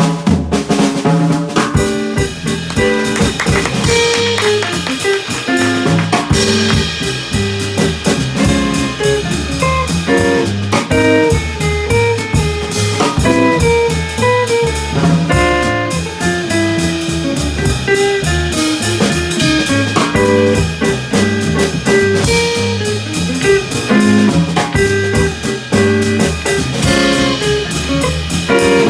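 Jazz band playing, with guitar over a drum kit keeping time and a line of steadily moving notes throughout.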